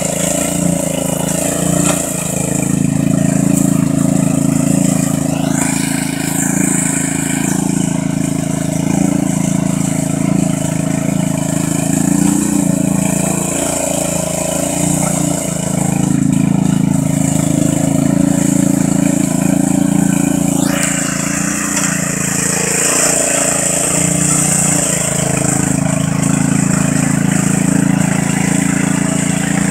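Riding lawn mower engine running steadily under load as the mower drives through mud, its speed dipping and rising a little.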